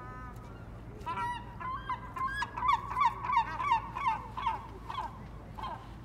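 Gull giving a long call: a drawn-out note about a second in, then a loud series of short repeated notes, about three a second, trailing off near the end.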